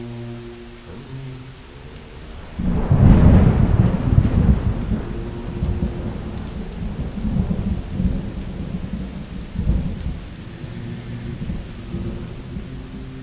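Ocean surf breaking around a kayak: a sudden loud rush of whitewater about two and a half seconds in, then churning, rumbling water with smaller surges later on.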